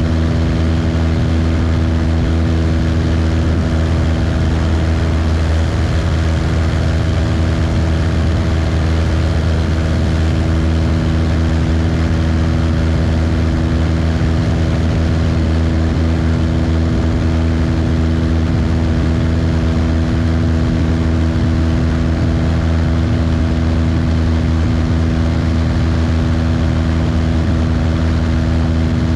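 Cessna 172's piston engine and propeller running steadily in cruise flight: a loud, constant drone with a deep rumble and steady tones that hold one pitch throughout.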